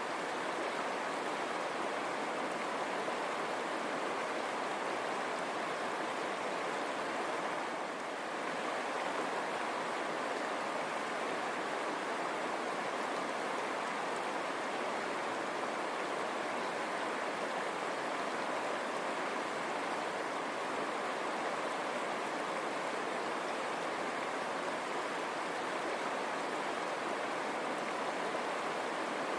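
River water running over rocks, a steady even rush with a brief slight dip about eight seconds in.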